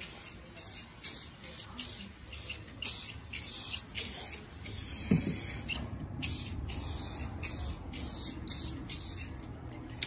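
Aerosol spray can of Plasti Dip hissing in quick repeated bursts, about two a second, as a gloss coat is sprayed on. The spraying stops shortly before the end.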